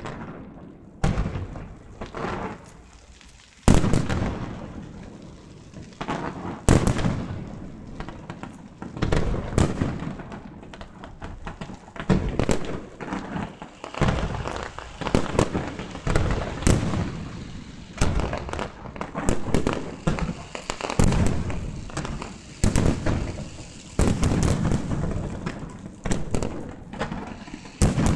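Fireworks display: shells bursting one after another, each bang followed by a fading tail. The bangs come a few seconds apart at first, then about once a second.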